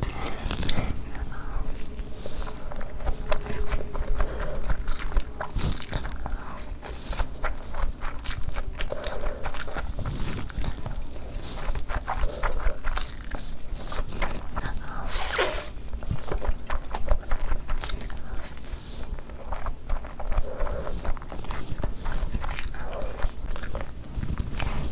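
Close-miked mukbang eating sounds: a person chewing and slurping food, with many irregular wet mouth clicks and smacks.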